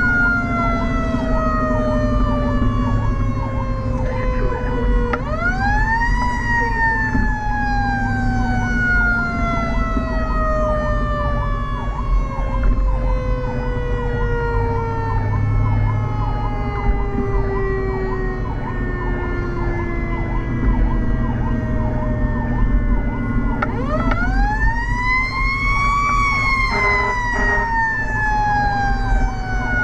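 Fire engine sirens heard from inside the cab. A mechanical siren winds up sharply twice, about 5 seconds in and again near 24 seconds, and each time coasts down in a long falling wail. Under it runs an electronic siren's fast warble, about three cycles a second, with the truck's engine rumbling underneath and a couple of short blasts near the end.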